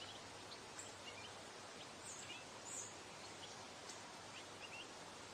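Faint songbirds chirping in short, scattered calls over a steady outdoor hiss.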